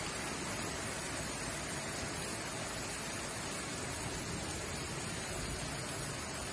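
Heavy summer rain falling on roofs and pavement: a steady, even hiss.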